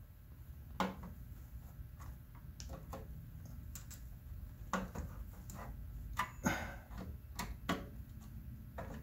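Irregular small clicks and ticks of a screwdriver working the wiring terminal screws on a variable frequency drive (inverter), loosening them.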